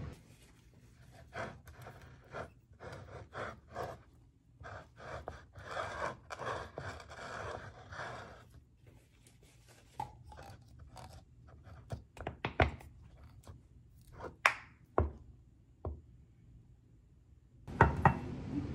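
Close kitchen handling of glass jars of pickled cabbage. First comes a run of short crunching, rustling noises; then sharper clicks and taps of metal screw lids going onto the glass jars, with a louder knock near the end.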